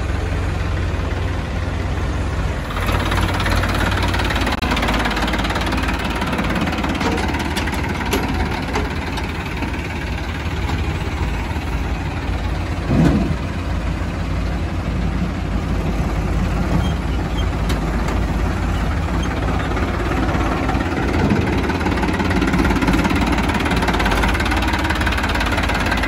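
Farm tractor diesel engine running steadily, with one brief louder sound about halfway through.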